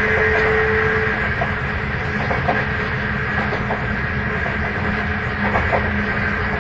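Sotetsu 8000 series electric train running, heard from inside car MoHa 8107: a steady rumble with a high, jet-like whine, the abnormal noise this car is known for. A lower tone stops about a second in, and wheel clicks over the rails come through faintly.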